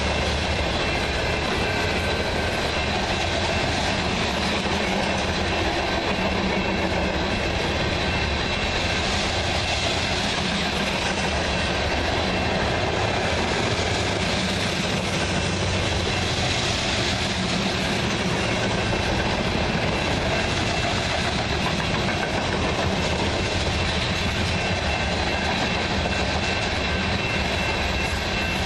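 Covered hopper cars of a long freight train rolling past close by: the steady, unbroken noise of steel wheels on the rails.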